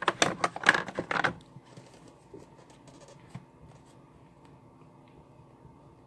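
A quick run of paper and cardstock being handled, rustling and scraping for about the first second and a half, then only faint small taps.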